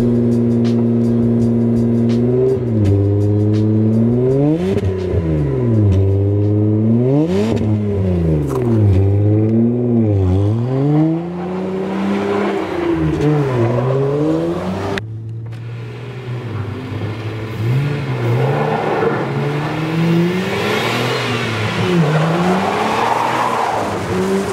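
Mazda MX-3's straight-piped exhaust: idling steadily, then blipped up and down about six times. The car then pulls away and accelerates, with the pitch rising and dropping through the gear changes.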